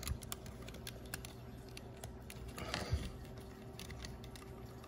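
Small scattered clicks and scratches of a paper-clip wire and hard plastic parts being handled as the wire is worked into an I-Dog pup toy's head mechanism as a replacement spring, with a slightly louder rustle of clicks about three seconds in. A faint steady hum lies underneath.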